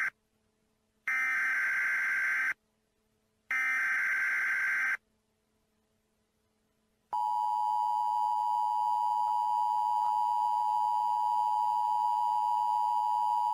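Broadcast alert tones from a recording: two bursts of digital data tone about a second and a half each, a gap, then about seven seconds in a steady two-note alarm tone. This is the pattern of an Emergency Alert System data header followed by its two-tone attention signal.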